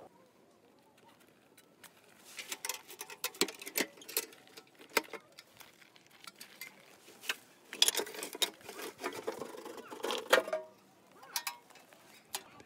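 Black sheet-metal ammo-can stove being taken apart by gloved hands: irregular clicks, knocks and scrapes as the metal inner pieces are lifted out and handled, over a light rustle. It starts about two seconds in and thins out a little before the end.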